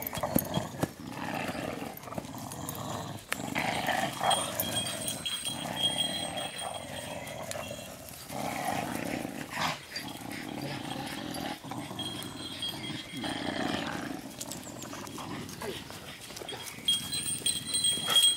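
Dogs growling in rough play, in rasping breaths a second or two long with short gaps between them.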